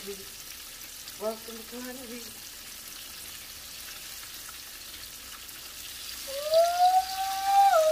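Battered turkey pieces deep-frying in hot oil in a cast-iron skillet: a steady hiss of bubbling oil. About six seconds in, a held, slightly rising tone comes in over it and becomes the loudest sound.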